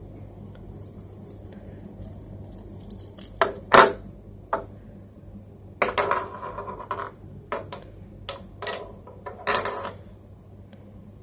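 Hard plastic toy pieces clacking: a toy fishing rod's plastic hook and small plastic fish knocking together and against the tabletop in a string of irregular clicks and taps, the loudest about four seconds in. A low steady hum runs underneath.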